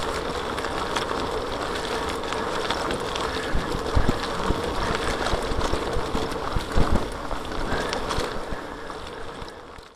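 Bicycle rolling fast over a rough, leaf-strewn dirt trail, heard from a handlebar-mounted camera: steady tyre and rattle noise with sharp knocks from bumps, the loudest about 4 and 7 seconds in. It fades out near the end.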